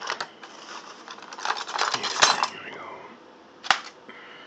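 Metal cutlery and utensils clattering and rattling in a kitchen drawer as a pair of scissors is pulled out, then a single sharp snip near the end as the scissors cut into the plastic film over a frozen-meal tray to vent it.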